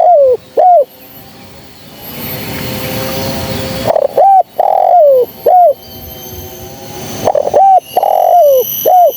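Spotted dove cooing. It gives repeated phrases about every three and a half seconds, each of short arched coos with one longer coo that slides down in pitch. A quieter steady rush of background noise fills the gaps between phrases.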